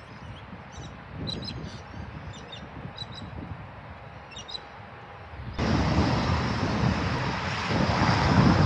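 Wind rumbling on the microphone with small birds chirping now and then. About two-thirds of the way through, the sound cuts abruptly to much louder wind buffeting the microphone and a low rumble.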